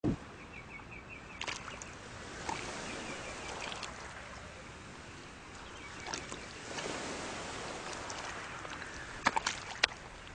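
Mudflat ambience: a steady soft hiss with two short runs of rapid high ticking in the first few seconds, and scattered wet clicks and pops from the mud. A quick cluster of louder clicks comes near the end.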